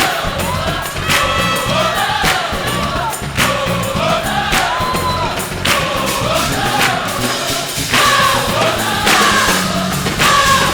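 Gospel choir singing with band accompaniment, voices sliding and bending through held notes between words, over a steady beat of about one accent a second.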